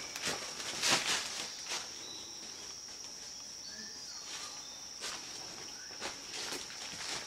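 A steady high-pitched insect drone, with footsteps and scuffs on rock at irregular intervals; the loudest steps come about a second in.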